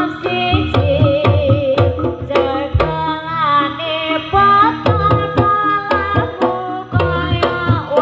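Live jaranan ensemble music: hand drums beating a busy, driving pattern under a wavering melody line that slides in pitch, with metallic gamelan-style tones.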